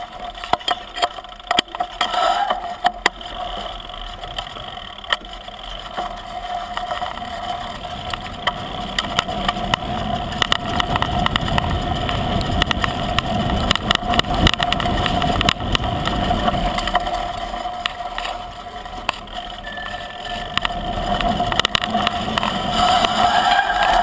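Mountain bike descending a dirt singletrack, heard from a handlebar-mounted camera: tyre noise over dirt and leaves, frequent rattles and knocks from the bike over bumps, and a steady buzz. The rumble grows louder in the middle and again near the end as the bike picks up speed.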